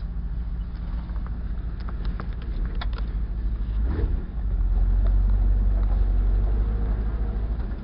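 Off-road 4x4 truck's engine heard from inside the cab as a steady low drone, with light knocks and rattles over the first few seconds while the truck crawls along the creek bed. About four seconds in the engine note grows louder and deeper and holds there, as the truck works harder.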